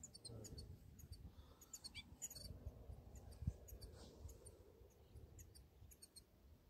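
Near silence: faint low rustling with a soft knock about halfway through, and scattered faint high chirps of small birds.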